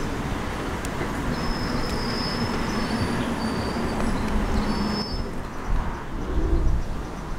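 NYC Subway track geometry car rolling along the rails, a steady rumble with a low hum. High-pitched wheel squeals come and go in the first few seconds, and the sound thins out about five seconds in.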